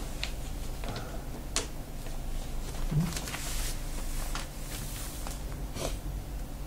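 Quiet paper-handling sounds at a calligraphy table: scattered light taps, then a rustle of paper from about three seconds in as the printed model sheet is shifted by hand, over a steady low hum.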